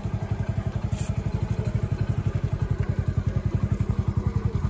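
Single-cylinder Honda motorcycle engine running steadily at low revs, a rapid even putter with no revving.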